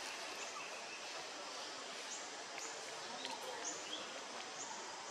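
Outdoor tree-canopy ambience: a steady hiss with a bird repeating a short, high chirp about once a second.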